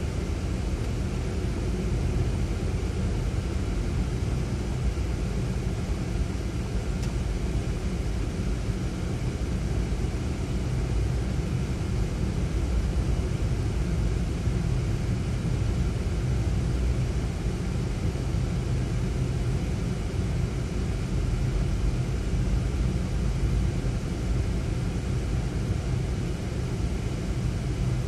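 Ford Fiesta driving at steady speed, heard from inside the cabin: a constant low rumble of tyre and engine noise that does not change.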